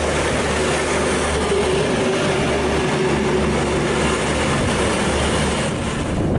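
A train running along the track: a steady rushing noise, with a faint steady tone through the middle.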